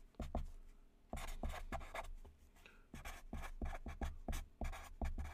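Sharpie felt-tip marker writing on paper: a run of short, quick strokes, with a brief pause about half a second in.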